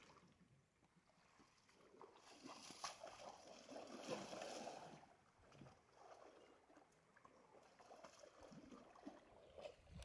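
Faint sloshing and gurgling of muddy water stirred by water buffalo wallowing in a pond, swelling a little about two seconds in and easing off after about five seconds.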